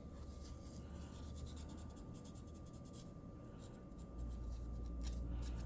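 Faint scratching strokes of walnut revolver grips being hand-sanded to strip the old polyurethane finish, growing quicker and a little louder after about four seconds. A faint steady high hum runs underneath.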